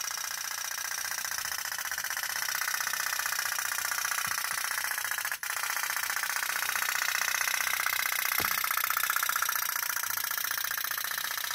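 Toy pop-pop boat, a candle-heated steam boat with a tin diaphragm engine, running with a rapid, steady putt-putt rattle as it pushes itself through the water.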